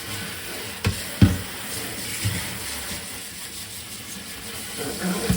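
Tap water running steadily over a circuit board being rinsed in a sink. Two sharp knocks come about a second in, and more near the end, as the board is handled.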